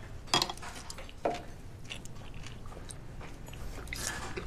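Eating gukbap: chewing, with a metal spoon clicking sharply against a stone bowl twice in the first second and a half, and a softer scrape near the end.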